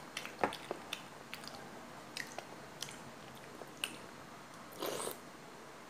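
Close-up eating sounds: chewing and small mouth noises as rice and soup are eaten from a metal spoon, with scattered light clicks. A brief louder noise comes about five seconds in.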